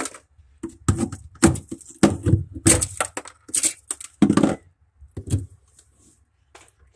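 Irregular sharp cracks and knocks, about ten in the first five seconds and then fewer: built-up ice in a freezer being broken loose and handled.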